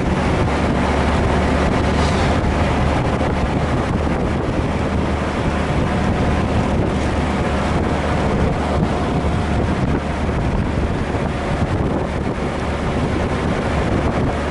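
A Honda Gold Wing GL1500's flat-six engine holds a steady drone while riding, under heavy wind rush on the microphone.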